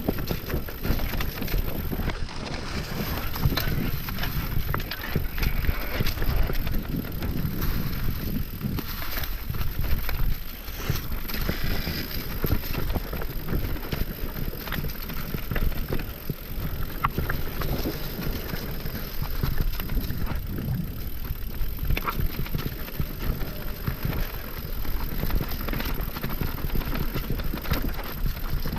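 Mountain bike descending a rough dirt trail: WTB Vigilante and Trail Boss tyres rolling and skidding over dirt and rocks, with the frame, chain and parts rattling over bumps, and wind buffeting the camera microphone.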